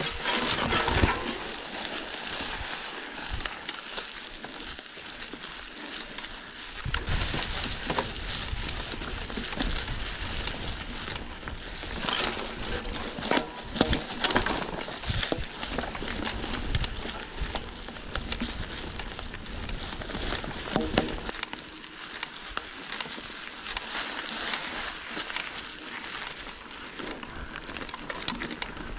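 Bicycle on the move: tyres rolling with a steady crackling noise and scattered clicks and rattles. A low rumble joins about seven seconds in and drops away about twenty-one seconds in.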